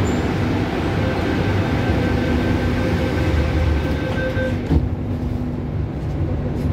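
MTR C-Train doors closing: a steady door-closing warning tone sounds for about three and a half seconds, then the doors shut with a knock about five seconds in, over the steady hum of the train car.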